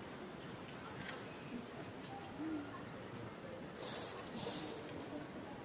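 Faint outdoor animal calls: a few short low calls and some brief high squeaky chirps, over a steady thin high whine, with a short rustling burst about four seconds in.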